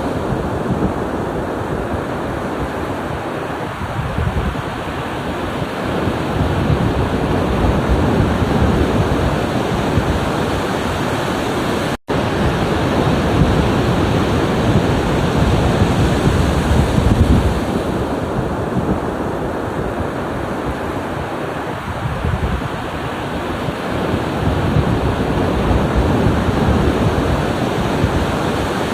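Ocean surf breaking and washing on the shore, swelling and easing in slow surges, with wind noise on the microphone. The sound drops out for a split second about twelve seconds in.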